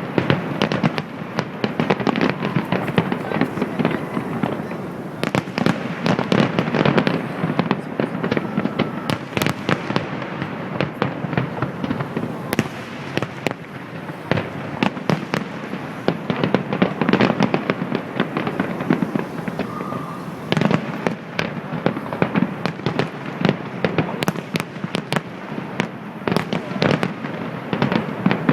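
Fireworks display going off continuously: dense volleys of bangs and crackling shells, one after another with no pause.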